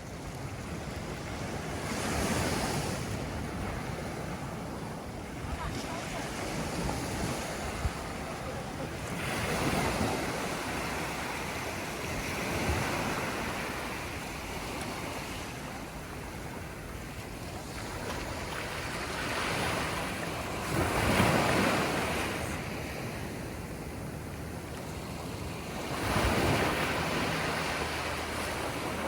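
Ocean surf breaking and washing up the shore, swelling and fading every few seconds, with wind buffeting the microphone.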